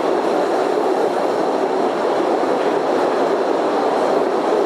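Postojna Cave's small tourist train running along its track, heard from a seat aboard: a steady rumble and rattle of the wheels on the rails.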